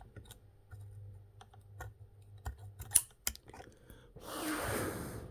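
Scattered small clicks and taps of the soldering-gun tip and wire being handled against the speaker's metal parts, with a short hiss lasting about a second near the end.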